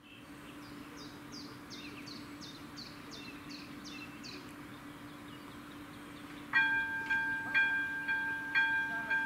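Level crossing's AŽD ZV02 electronic warning bell starts ringing about six and a half seconds in, a bell-like ding struck about once a second as the red warning lights begin flashing: the signal that a train is approaching. Before it there are only faint quick high chirps over a low steady hum.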